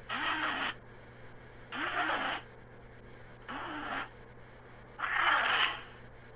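Godzilla roar sound effects from the 1960s–70s films: four short, harsh roars, each about half a second long, coming roughly every second and a half, each rising and then falling in pitch.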